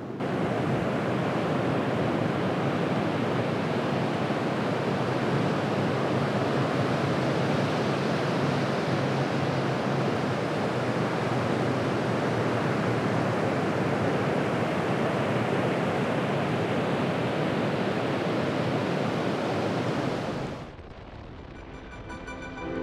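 Ocean surf breaking on a beach, a steady, loud roar of rushing water. It cuts off shortly before the end, where soft music comes in.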